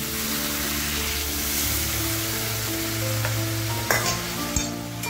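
Potatoes and spice paste sizzling in hot oil in a kadai as water is added and stirred in, with two short knocks of the spatula against the pan near the end.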